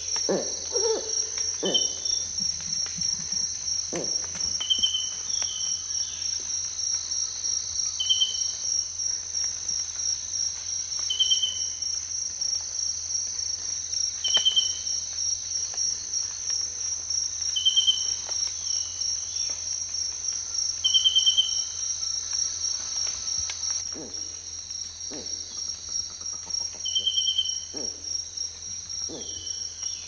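Cicadas droning steadily with a fast pulsing, while a short high chirp repeats about every three seconds. A titi monkey's low hooting call trails off in the first couple of seconds, and a few faint low notes come near the end.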